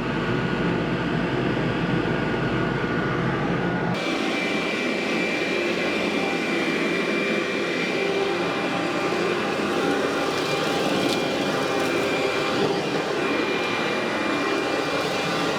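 Vacuum cleaner running steadily over carpet, its motor whining. The sound changes abruptly about four seconds in.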